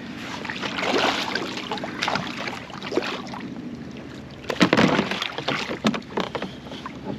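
A small hooked striped bass splashing at the surface beside a canoe as it is pulled in by the line, over steady water noise. The loudest splashing comes in a burst of a second or so about two-thirds of the way in.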